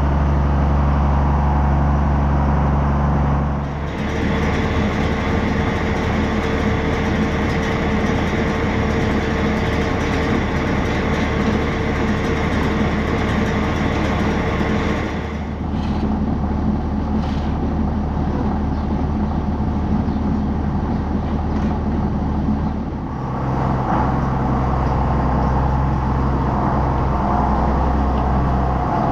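An engine running steadily. Its tone shifts abruptly about four seconds in, again around fifteen seconds and again near twenty-three seconds.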